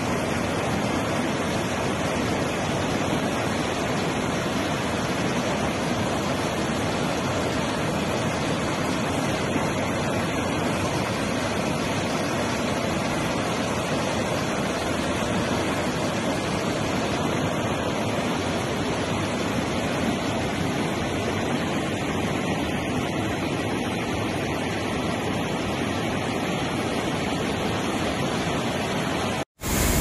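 Steady rush of a waterfall and river in heavy flood, water pouring over the falls and surging across a submerged walkway in an even, unbroken noise.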